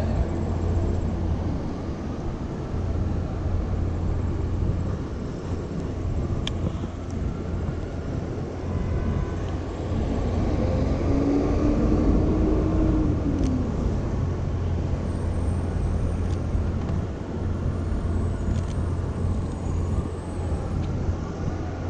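City street traffic noise: a steady rumble of passing cars and other vehicles, a little louder around the middle.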